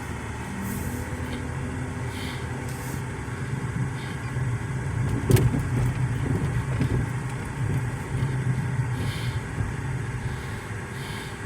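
Car driving along a street: a steady low engine and road hum, with one sharp click about five seconds in.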